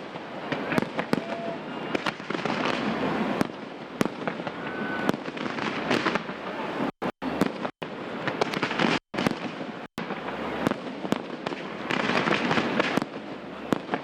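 Aerial fireworks display: a dense, continuous crackling of bursting shells with many sharp bangs and a few short whistles. The sound cuts out for an instant several times near the middle.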